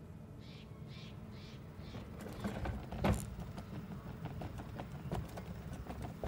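Electric hand cart's motor humming as it rolls down a wooden plank ramp, with its wheels clicking and knocking over the boards. The clicks grow denser from about two seconds in, and there is a sharp knock about a second after that.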